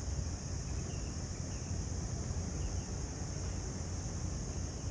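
Steady outdoor background noise: a fluctuating low rumble, a steady high hiss, and a few faint chirps between about one and three seconds in.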